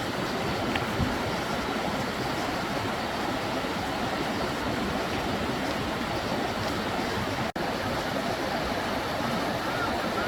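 Steady rushing of a mountain stream along a waterfall trail. The noise cuts out for an instant about seven and a half seconds in.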